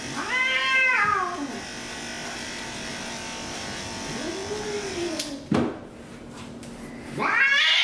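A cat meows in protest three times: a rising-and-falling call about a second in, a lower, softer one around the middle, and a loud one near the end. Under the first two runs the steady hum of electric pet clippers shaving matted fur. The clippers stop with a sharp click about two-thirds of the way through.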